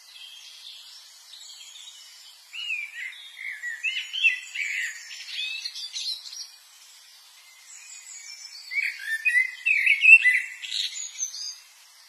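Birds chirping: two bouts of quick, sliding high calls, one starting a few seconds in and the other about two-thirds of the way through, with fainter calls between.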